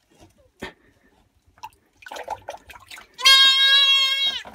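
A spotted deer fawn bleating as it is handled: light scuffling for the first few seconds, then one loud, high, drawn-out bleat about three seconds in that dips in pitch as it ends.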